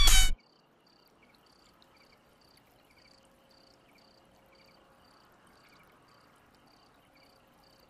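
Music cuts off abruptly, leaving faint, evenly spaced cricket chirps, about two a second, against near silence.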